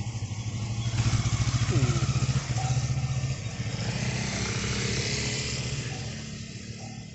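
CFMoto 650MT motorcycle's parallel-twin engine running as the bike rides away down the street, loudest about a second or two in and then fading steadily.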